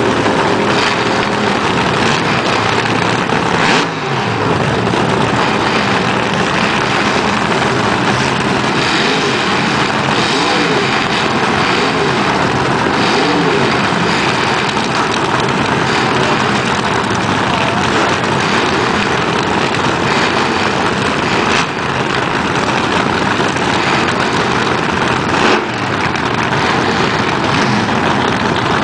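Vintage front-engine dragster engines cackling at standstill, loud and steady, with the pitch rising and falling now and then.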